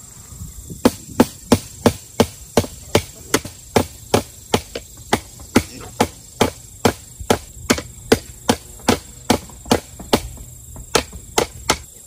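Hammer blows struck at a steady pace, about two and a half a second, with one brief pause near the end.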